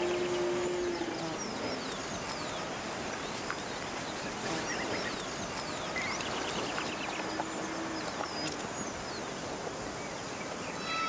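Rural outdoor ambience: many small birds chirping and twittering over a steady background hiss. A low held note sounds briefly twice, once right at the start and again about seven seconds in.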